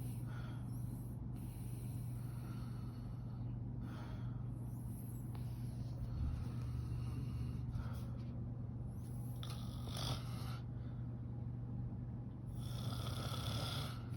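Sleeping women snoring, a rasping breath coming about every two to three seconds.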